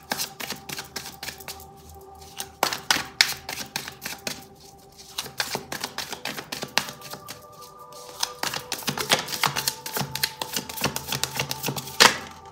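A tarot deck shuffled by hand: rapid runs of card clicks in several stretches with short pauses between, and one louder snap near the end. Soft background music with held notes plays underneath.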